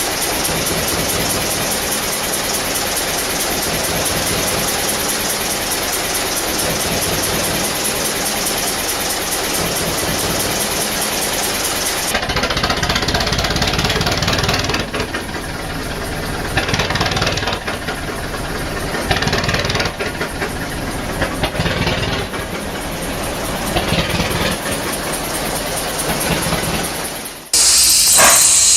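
Large engines running, in two clips: first a dense, fast, steady run; then, after a cut about twelve seconds in, a slower engine with a pulse every second or two. A loud hiss, like steam or compressed air, starts near the end.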